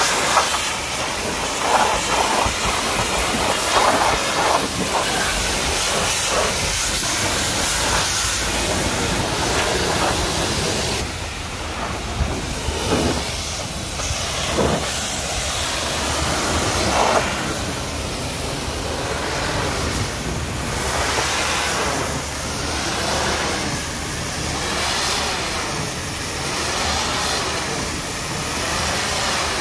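High-pressure washer jet spraying water against a truck's canvas tarpaulin cover and body: a loud, steady hiss of spray and splashing that shifts in tone as the wand moves across the surface.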